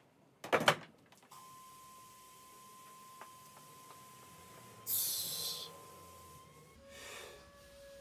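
A loaded barbell clanks sharply on the squat rack about half a second in. A steady, pure high tone then comes in, joined near the end by a second, lower one. About five seconds in there is a sharp hissing breath as the lifter braces under the bar.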